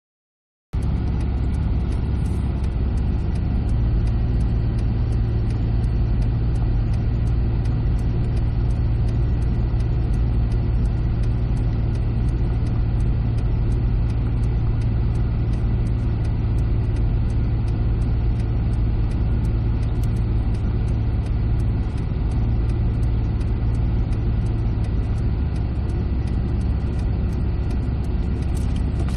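Car engine and tyre noise heard from inside the cabin, a steady low rumble with a constant hum, as the car creeps along at walking pace. It starts abruptly under a second in.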